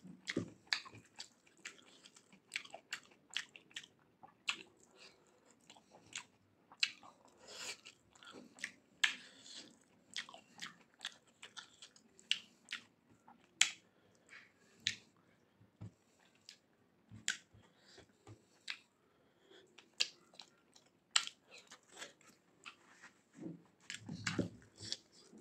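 A person eating rice and mutton curry by hand, close to the microphone: chewing, with many short, sharp mouth clicks and smacks.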